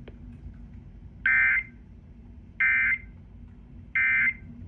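Emergency Alert System end-of-message code: three short, identical digital data bursts about a second apart, the SAME 'NNNN' signal that marks the end of a weather radio alert.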